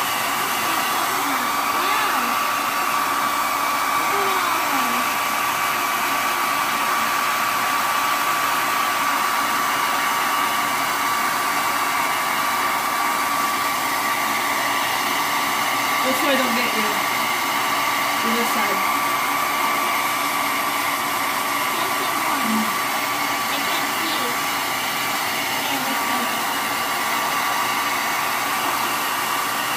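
Handheld hair dryer running steadily, a rush of blown air with a steady whine from its fan motor.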